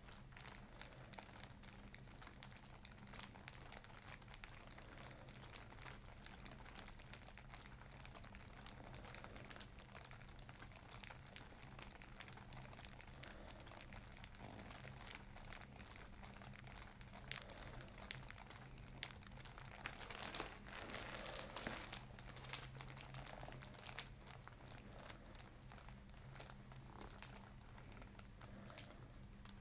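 Paper headrest cover of a chiropractic table crinkling and rustling under the head as hands work the neck, in many small crackles, with a louder rustle about twenty seconds in. A faint steady electrical hum sits underneath.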